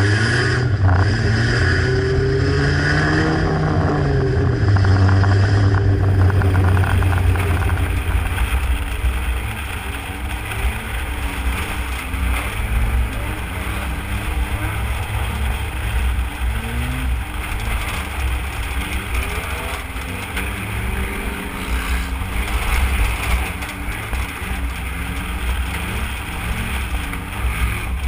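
Demolition derby car engine revving up and down, heard from inside the stripped-out cabin, its pitch rising and falling again and again. The sound changes character about six seconds in.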